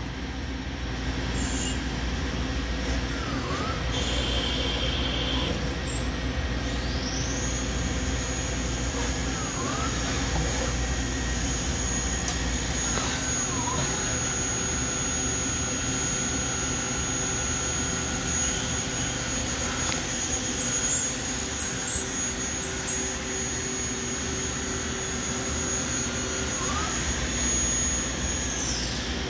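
Doosan Lynx 220G Super CNC gang-tool lathe running a program, its spindle turning at about 2,800 rpm: a steady machine hum under a high-pitched whine. The whine glides up about six seconds in, holds steady, and drops away near the end.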